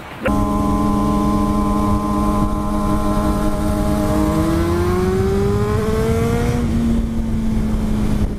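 Sport motorcycles riding at speed, engines humming at fairly steady revs over wind rush on the microphone. Part of the engine note rises between about four and six and a half seconds in as a bike speeds up.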